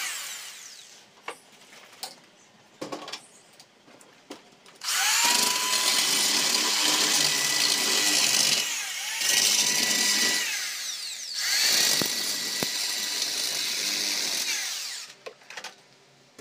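Cordless drill running in three long bursts starting about five seconds in, its motor whine rising as it spins up at the first. A few knocks and clicks of handling come before it.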